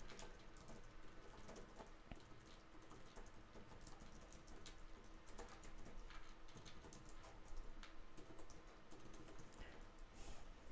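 Typing on a computer keyboard: an irregular run of faint keystroke clicks.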